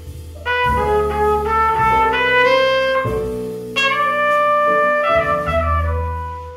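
Jazz trumpet playing a ballad melody with upright bass and band accompaniment: after a brief pause it enters about half a second in with a phrase of short notes climbing step by step, then holds a long note in the middle before a falling phrase.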